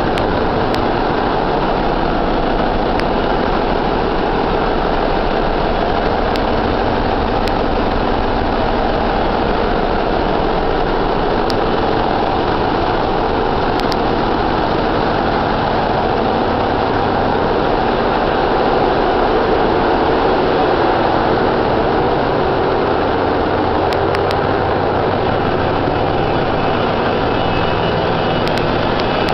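Very loud, steady din of a ship's engine room: many machines running together in a dense hum with several steady tones, without a break.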